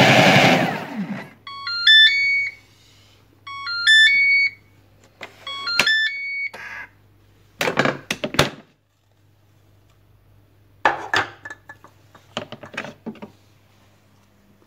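A Vorwerk Thermomix's motor runs down and stops about a second in as its timer reaches zero. The machine then plays its short rising beep melody three times, about two seconds apart, signalling that the program has finished. After that come sharp clicks and clatters of the Thermomix lid being handled and opened.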